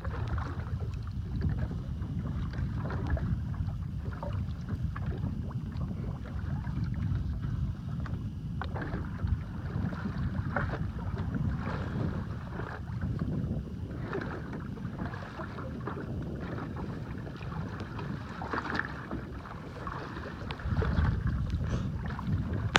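Wind rumbling on the microphone aboard a small boat, with scattered short knocks and splashes, louder for a moment near the end.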